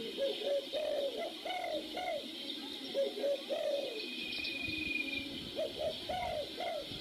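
Birds calling in a steady run of short, low, arched hooting notes, some coming in quick pairs.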